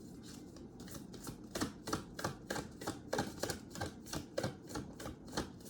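A deck of reading cards being shuffled by hand: a steady run of short card taps and slaps, about three to four a second, starting just under a second in.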